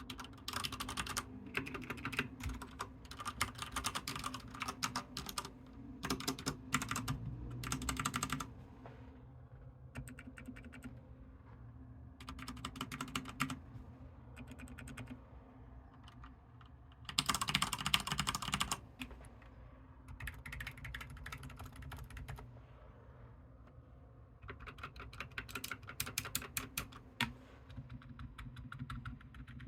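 Typing on a mechanical keyboard with linear switches: bursts of rapid key clicks a few seconds long, separated by short pauses. The densest and loudest run of keystrokes comes about two-thirds of the way through, and a steady low hum sits underneath.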